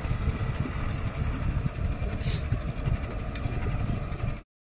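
Wind buffeting a phone microphone carried on a moving bicycle, a low, uneven rumble; it cuts off suddenly near the end.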